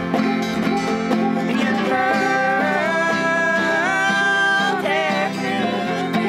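Acoustic string band playing a country song on banjo, acoustic guitar and fiddle. Two singers come in together about a second and a half in and sing until about five seconds in, with the plucked strings carrying on beneath.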